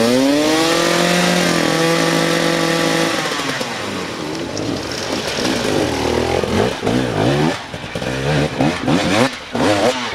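Dirt bike engine revving hard: the pitch climbs quickly and holds at high revs for about three seconds, then the engine drops away. It goes on in short, irregular throttle blips as the bike picks its way over rocks.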